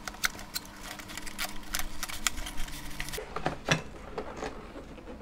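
Cardboard packaging of a flatware set being handled and opened: a run of small clicks, scrapes and rustles, with a few duller knocks about three and a half seconds in.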